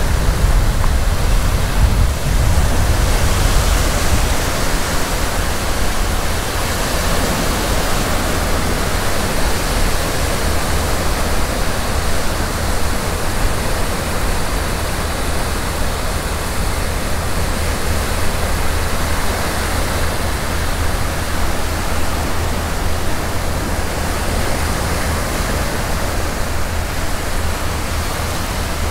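Wind buffeting the microphone: a steady, loud rush with a heavy, fluttering low rumble.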